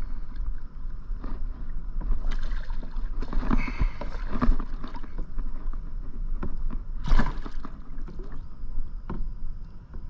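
A hooked bass splashing at the water's surface as it is reeled in and landed beside a kayak, with knocks of handling against the boat. The loudest splash comes about seven seconds in.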